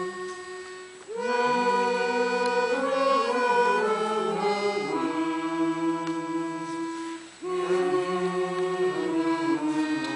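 Music of long held chords, each sustained for several seconds, with a short break about a second in and another about seven seconds in.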